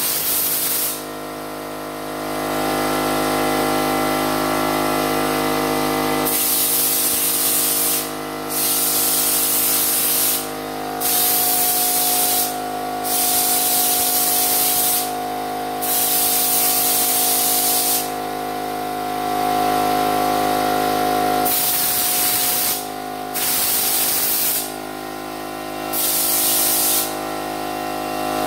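Air-fed cup spray gun hissing as it sprays bedliner coating, in bursts of one to three seconds as the trigger is pulled and let go. A steady machine hum runs underneath.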